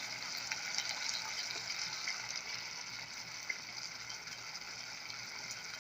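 Chicken pieces frying in sesame oil in a pan, a steady sizzle that slowly fades, with a few faint clicks.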